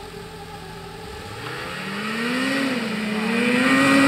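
Snowmobiles pulling away and accelerating toward the listener. The engine note rises in pitch, wavers and grows steadily louder as the lead machine closes in.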